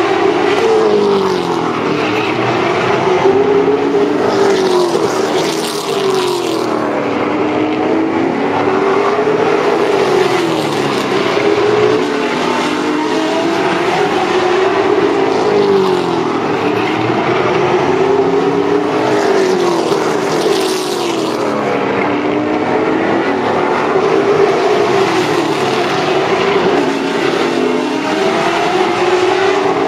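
Late model stock cars' V8 engines racing around a short oval. The engine notes rise and fall over and over, every few seconds, as the cars accelerate and lift through the laps, with more than one car heard at once.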